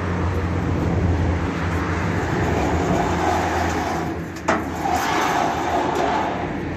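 An engine running steadily with a low hum, and a single sharp knock about four and a half seconds in.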